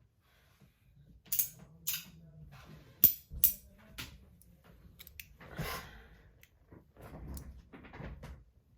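Magnetic slider fidgets being snapped back and forth: a string of sharp, irregular metal clicks as the sliding piece snaps onto the magnets, the loudest about three seconds in, between softer handling rustles.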